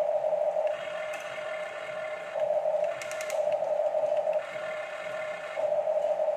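Electric gear motors of a Huina radio-controlled toy excavator whining as the boom and bucket move. A lower-pitched whine alternates with a higher-pitched one every second or two as different functions run, and there is a short burst of rapid clicks about three seconds in.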